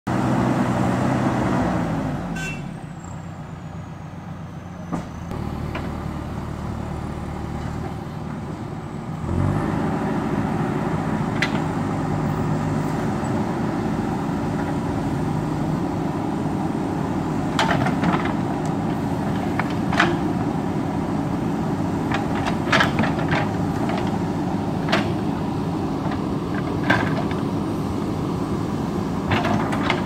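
JCB backhoe loader's diesel engine running as the backhoe digs: it drops to a lower idle about two seconds in, then revs back up about a third of the way through and holds steady under load. From about halfway on, sharp knocks and clanks come now and then as the bucket works through soil and stones.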